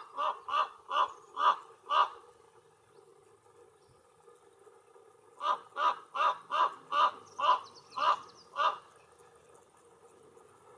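Canarian raven giving short, hoarse croaking calls in two runs: six calls over about two seconds, then after a pause of about three seconds, eight more at a slightly quicker pace.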